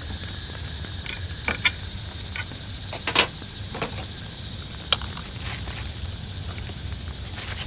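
Steady low rumble of rain, with a handful of sharp clicks and knocks on top; the loudest is a short cluster about three seconds in.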